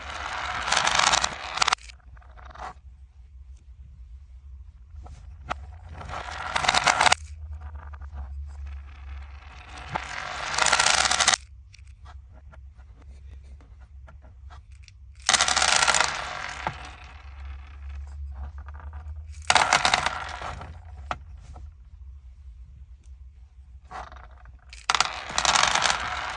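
Loose beads rattling and clattering against each other and their container in six separate bursts, each lasting a second or two, with short pauses between them.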